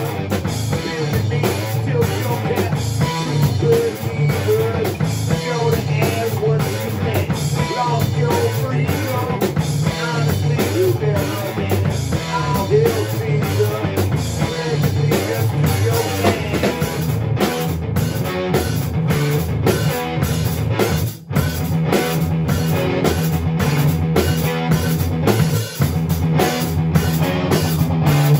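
Rock band playing live on drum kit and electric guitar, with a man singing lead into a microphone.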